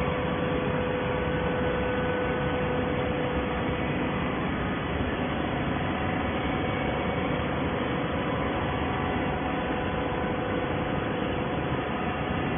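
Steady machine noise of an automatic horizontal waste-paper baler and its feed conveyor running: a continuous even hum with a few faint steady tones.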